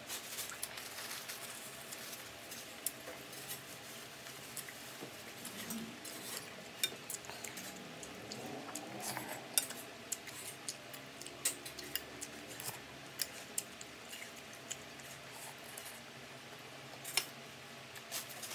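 Eating sounds: spoon and fork clicking and scraping on a plate, with chewing of fried duck and rice, in many short sharp clicks.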